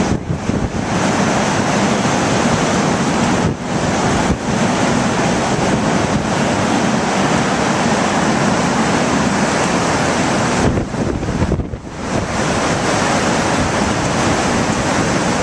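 Strong blizzard wind buffeting the microphone, loud and steady, easing briefly about three and a half seconds in and again around eleven seconds.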